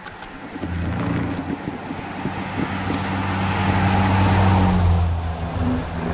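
Engine of a snow-clearing machine running steadily, coming up louder about a second in. A rushing noise builds over it and is loudest around four to five seconds in, then eases off.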